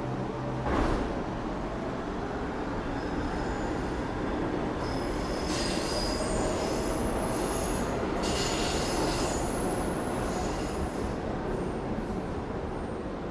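New York City subway train running through the station, with a steady rumble and high squealing from its wheels on the rails through the middle. A single loud clunk about a second in.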